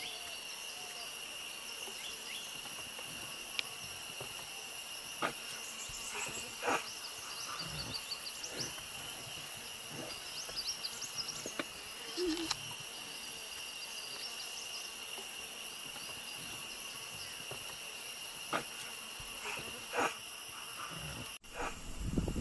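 Steady insect chorus, high-pitched drones at several pitches, with a few short sharp calls or clicks scattered through it. Near the end the sound cuts out briefly and a low rumble comes in.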